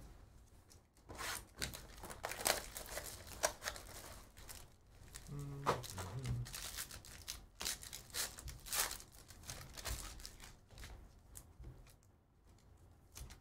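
Sports card packs being torn and slit open, with a run of quick rips and crinkling of the foil wrappers.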